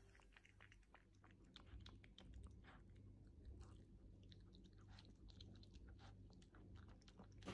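Small Maltese dog eating from a bowl: faint, irregular chewing and crunching, many quick clicks of teeth on food.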